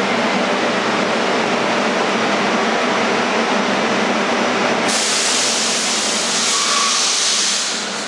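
A New York City Subway R44 car standing in the station with a steady hum. About five seconds in, a loud hiss of compressed air lasting about three seconds as its air brakes release before the train leaves.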